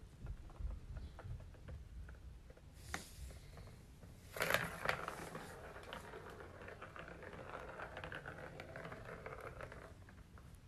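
Ball rolling around the channel of a plastic circular track toy: a few light taps, then a sharp clack about four and a half seconds in and a continuous rattling roll that fades out near the end.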